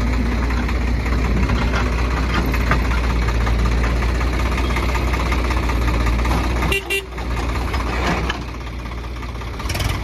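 Diesel engines of a JCB 3DX backhoe loader and a tractor running steadily. A short horn toot sounds about seven seconds in, and the engine noise is a little quieter after it.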